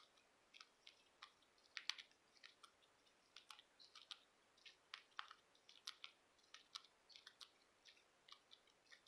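Cockatiel eating a treat: faint, irregular clicks and crunches of its beak, a few each second.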